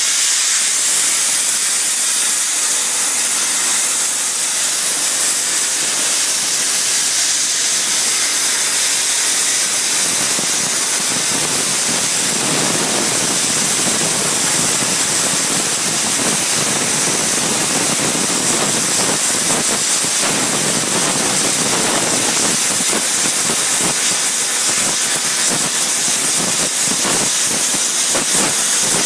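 Hypertherm Powermax 105 plasma torch cutting through 20 mm-thick mild steel pipe: a loud, steady hiss of the plasma arc. The hiss grows rougher and fuller from about ten seconds in.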